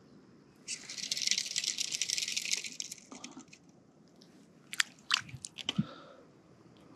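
Fly reel's click ratchet buzzing as line is pulled off it for about two seconds, then a few separate clicks from line handling.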